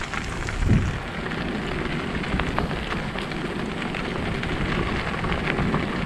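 Bicycle tyres rolling over a gravel-and-dirt forest track: a steady crunching crackle of small stones under the wheels, with a low rumble from the rough surface.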